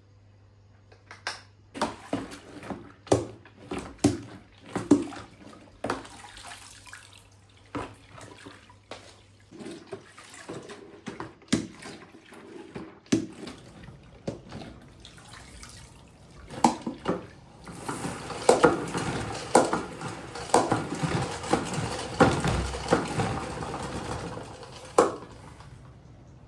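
Dishes and utensils knocking and clinking in a kitchen sink, then a tap running into the sink for several seconds while things are rinsed, stopping shortly before the end.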